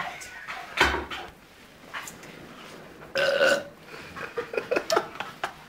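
A person belching loudly once, about three seconds in, for about half a second. A sharp knock comes a little before one second in.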